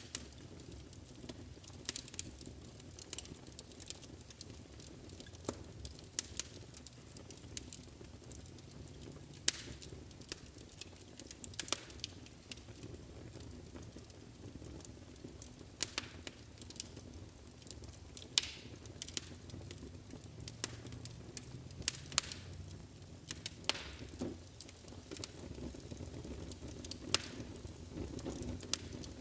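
Wood fire burning in a fireplace, a low steady rumble of flames under irregular crackles and sharp pops, a few of them much louder than the rest.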